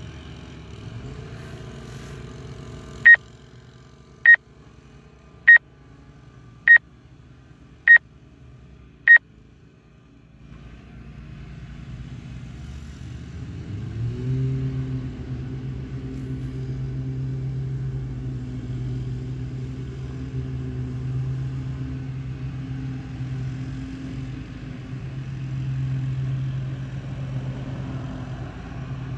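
Six short, high electronic beeps, evenly spaced a little over a second apart. About halfway through, a steady low engine hum sets in and keeps going.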